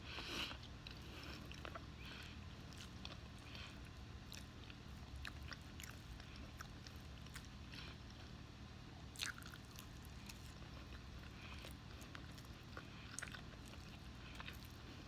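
A person chewing food close to the microphone: scattered soft mouth clicks, with a brief louder burst at the start and one sharper click about nine seconds in.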